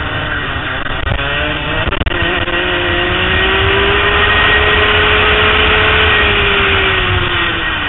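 Racing kart's engine heard onboard, pulling hard down a straight: its pitch climbs for a couple of seconds, holds at full speed, then drops near the end as it eases off.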